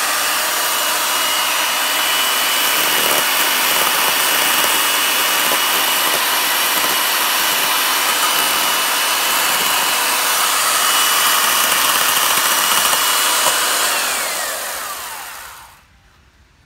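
Electric chainsaw running steadily as it carves into a juniper's wood, with a steady motor whine. Near the end it is switched off and the whine falls in pitch as the motor winds down.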